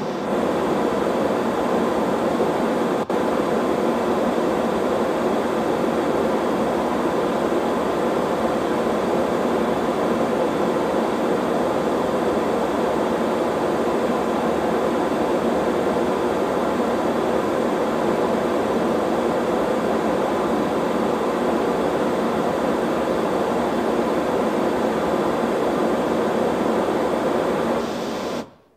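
Steady pink-noise test signal played through the PA's top loudspeakers for an acoustic measurement, with little deep bass because the subwoofers are not part of this measurement. It switches on and off abruptly, with one tiny break about three seconds in.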